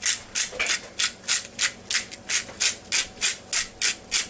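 A utensil scraping and stirring gravy in the Ninja Foodi's cooking pot, in steady rhythmic strokes at about three a second.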